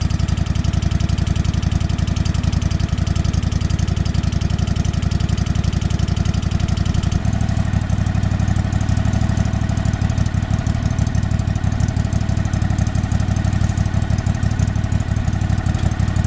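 Old Craftsman lawn tractor engine running steadily with a rapid, even firing beat, just brought back to life after sitting unrun for about eight years. Its note changes abruptly about seven seconds in.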